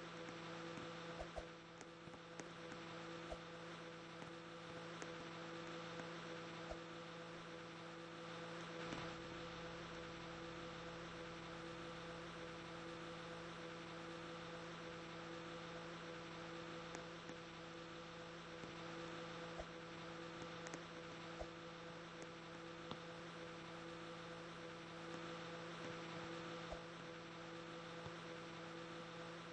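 Microwave oven running with a steady electrical hum, a mains-type drone with several even overtones, and a deeper rumble that comes in about nine seconds in and fades out near the end.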